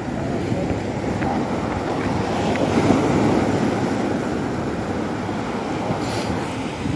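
Surf breaking and washing against a rocky shore, a steady rush that swells loudest about three seconds in, with wind buffeting the microphone.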